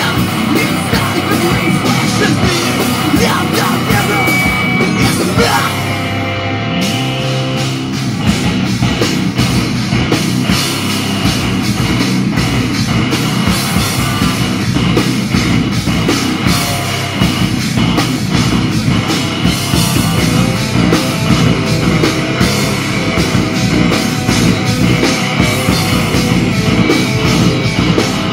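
A metal band playing live with electric guitars, bass and drum kit. About six seconds in the cymbals drop out for a second or so under held guitar notes, then the full band comes back in.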